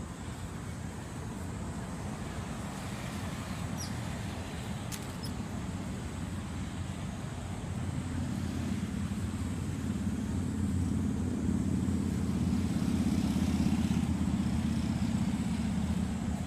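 A passing motor vehicle: a low engine rumble that builds from about halfway through and is loudest near the end.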